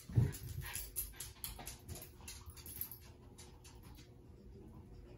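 Boston terrier moving about on a hard plank floor: a thump just after the start, then a scatter of light, irregular claw clicks that fade out after about three seconds.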